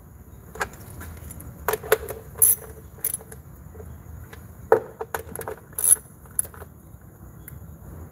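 Scattered sharp metallic clinks and taps of a small socket wrench handled on the plastic engine cover's bolts, about a dozen at irregular intervals.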